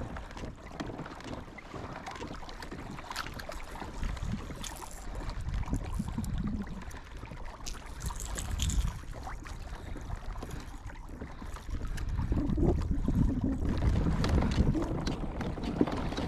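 Wind rumbling and gusting on the microphone over the sound of a small boat moving on the water, with gusts swelling about four seconds in and again from about twelve seconds.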